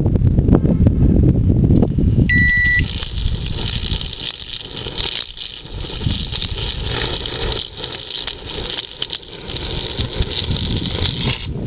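A low rumble, then about two seconds in the Daewoo microwave's control panel beeps once. The oven then runs with a steady high-pitched hiss: its magnetron is shorted and its transformer half burnt out.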